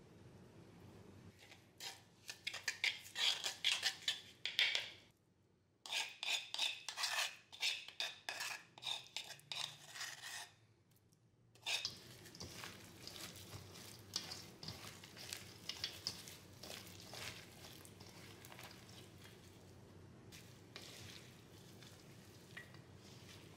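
Chef's knife rapidly chopping garlic on a cutting board, in two runs of quick, sharp strokes. About halfway through, this gives way to a quieter steady rustle of a gloved hand tossing julienned radish and carrot with seasoning in a stainless steel bowl.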